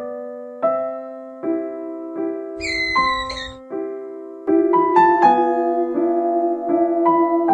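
Electric piano music playing a gentle melody, with a single high-pitched animal call about a second long near the middle.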